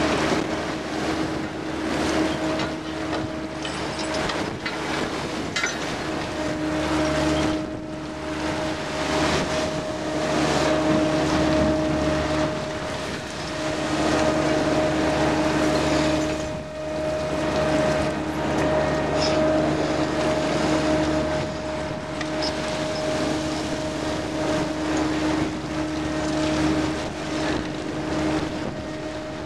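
Trawler deck machinery hauling in the trawl net: a steady hum with a whine that drops out for a moment now and then, over the wash of the sea and wind on the microphone.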